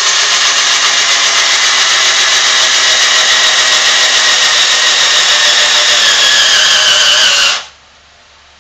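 Drill Master 18-volt cordless drill running at full speed, its bit boring through a vinyl floor tile: a steady whir whose pitch sags slightly near the end before it stops suddenly.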